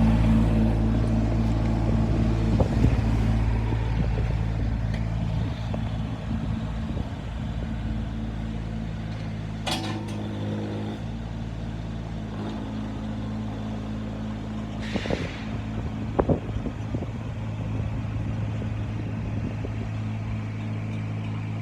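JCB 8008 micro excavator's small diesel engine running steadily, growing quieter over the first few seconds, with a few scattered knocks and clicks.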